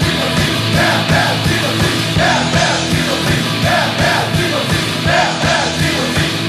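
Loud rock music with a fast, steady drum beat.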